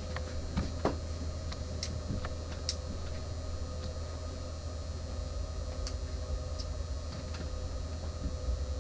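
Steady low electrical hum of room tone, with a few faint, sharp clicks scattered through it.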